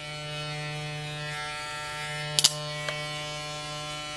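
Cordless Stylecraft Ergo magnetic-motor hair clipper running with a steady, even buzz. A sharp click comes about two and a half seconds in.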